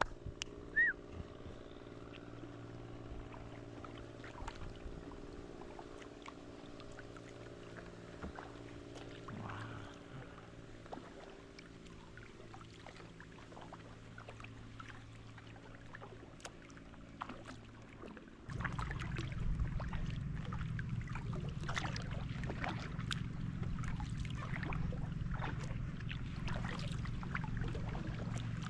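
Kayak paddling: paddle blades dipping and water splashing and dripping in small irregular splashes, over a steady low hum. About two-thirds of the way in, a louder low rushing noise comes in suddenly and the splashes grow denser.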